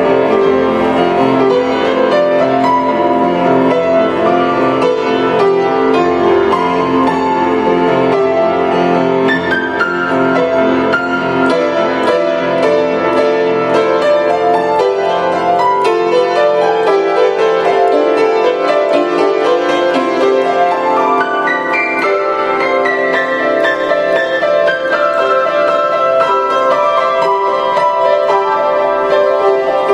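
Grand piano played solo with a steady stream of two-handed notes. About two thirds of the way through, the deep bass drops away and the playing moves into the upper middle of the keyboard.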